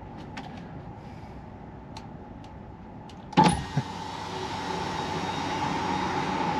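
A sudden clunk about three and a half seconds in, then a steady motor whine over a hiss that grows louder: a truck cab's electric window winding down.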